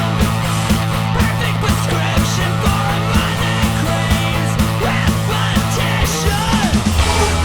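Rock music with bass and a steady drum beat.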